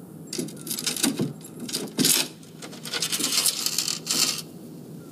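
A thin metal neck chain rattling and clinking as it is passed over and handled, in several runs of small quick clicks.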